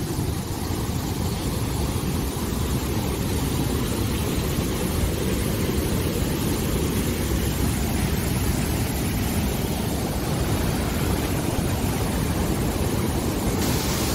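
Muddy floodwater pouring down a hillside in a steady, rushing noise that is heaviest in the low range.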